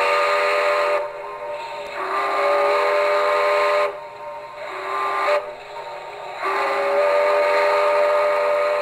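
Steam locomotive whistle sound effect from a Phoenix P5 soundboard in an LGB Wild West Forney model, a whistle of several notes sounded in a series of blasts that swell and ease, the last one long.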